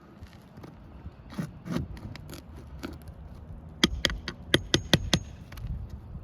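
Metal prying tool scraping and clicking against roofing nails as a roof shingle is worked loose to free them. Scattered scrapes and knocks come first, then a quick run of sharp metallic clicks about four seconds in.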